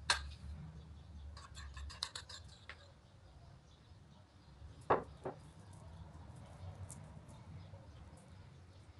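Metal spoon and bowl handling while cherry marmalade is spread over rolled-out dough: a sharp clink at the start, a quick run of light clicks, two knocks about five seconds in, then faint scraping and ticking as the spoon works the jam across the dough.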